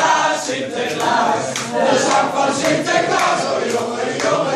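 A group of people singing together, loud and without pause.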